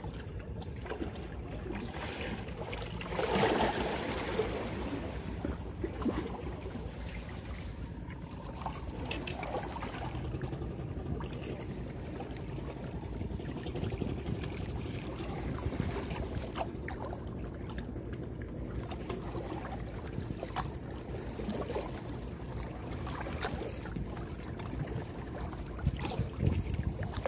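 Seawater lapping and trickling among concrete breakwater blocks over a steady low rumble, with a louder rushing surge about three seconds in and a few small clicks.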